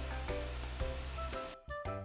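Background music with pitched melody notes over a steady bass line, which drops out briefly near the end.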